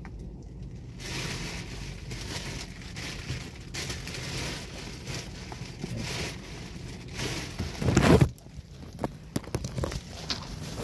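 Handling noise from a phone rubbing and rustling against clothing, with a loud scrape about eight seconds in and a few sharp clicks after it, over a steady low hum.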